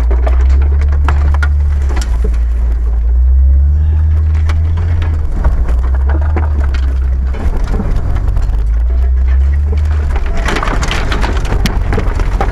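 Jeep XJ off-roader's engine running with a deep rumble that swells and eases as it pushes through dense forest, while branches and brush scrape, crack and snap against the bonnet and windscreen. The snapping is thickest near the start and again about ten to eleven seconds in.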